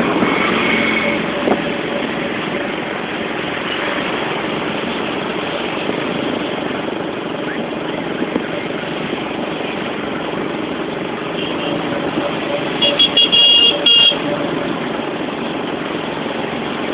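A motorcycle on the move, with steady engine and wind noise, and a vehicle horn sounding in a few short toots about 13 seconds in.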